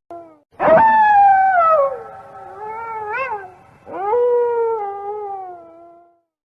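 A canine howling: two long drawn-out howls, each rising sharply and then sliding down in pitch, the second lower than the first and trailing off.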